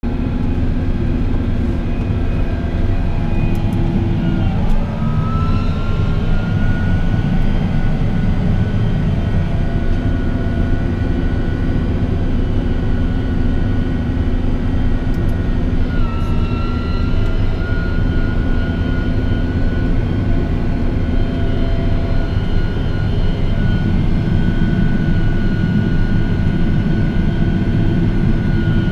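Caterpillar Challenger MT865E rubber-tracked tractor's diesel engine running steadily under load while pulling a disc cultivator. A high whine rides over the drone and shifts in pitch, then settles, about five seconds in and again about sixteen seconds in.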